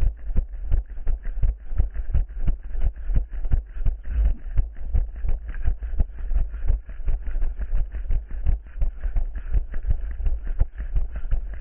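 A runner's footsteps at a steady running pace, about three strides a second, each a short thud, over a steady low rumble.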